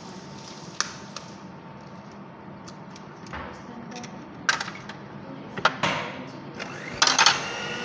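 A few sharp taps and knocks as an egg is cracked over a plastic bucket, followed by the clatter of an electric hand mixer being handled. At the very end the mixer's motor starts with a steady hum.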